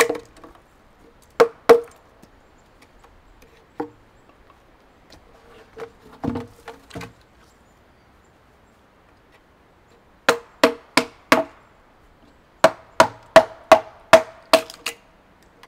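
Hand tool striking and cutting into a peeled log: sharp wooden knocks, a few spaced apart at first, then a quick run of four and a run of seven at about three a second near the end.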